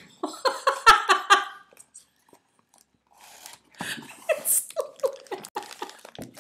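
A woman laughing in rapid runs of short pitched pulses: one burst in the first second and a half, a quiet pause, then laughing again from about four seconds in.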